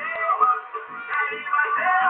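A song with male singing playing over a pickup truck's car audio system, the Nissan Frontier's sound system.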